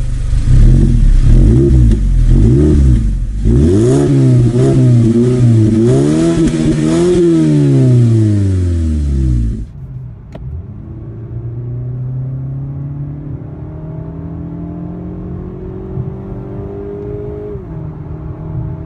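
Mazda Skyactiv-G four-cylinder petrol engine revving in a series of quick blips, the pitch rising and falling about once a second. After a sudden cut about ten seconds in, it is heard from inside the cabin accelerating under load, the note climbing slowly, then dropping at an upshift near the end.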